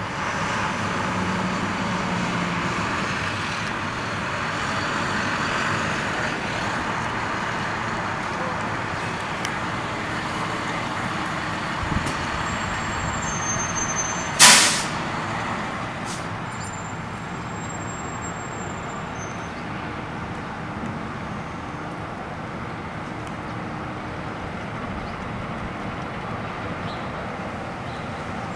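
Steady engine and street noise of an idling utility bucket truck powering its raised boom, with one short, loud burst about halfway through.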